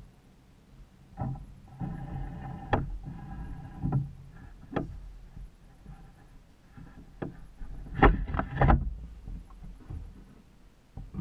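Knocks and clunks of a person shifting about and handling gear in a plastic fishing kayak, with a creak about two seconds in. A louder cluster of knocks comes about eight seconds in.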